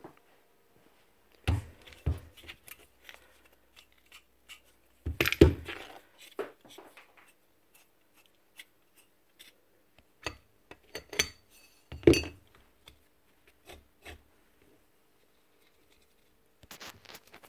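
Scattered clinks, taps and rubbing of metal parts and hand tools being handled while a miter saw motor is taken apart. There are a few louder knocks: about a second and a half in, around five seconds, and at about twelve seconds.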